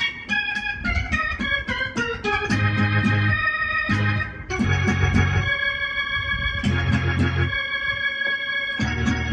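Electronic keyboard played gospel-style: quick runs of notes for the first two seconds or so, then full chords held for a second or two at a time over a deep bass.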